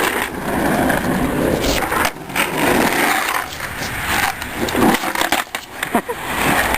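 Skateboard wheels rolling over wet pavement, a continuous rumble and hiss, with a few sharp clacks of the board.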